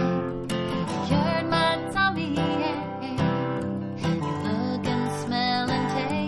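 Martin D-35 acoustic guitar strummed steadily, with a woman's singing voice carried over it.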